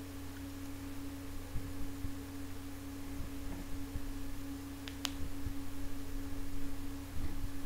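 Room tone dominated by a steady single-pitched hum, over a faint low rumble, with one faint click about five seconds in.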